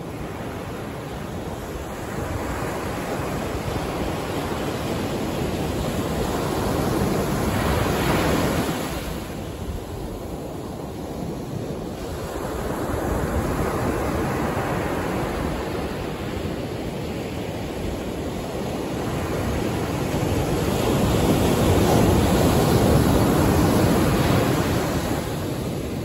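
Ocean surf breaking and washing up onto a sandy beach. It comes in three surges, about eight seconds in, around fourteen seconds and strongest near the end, each fading between waves.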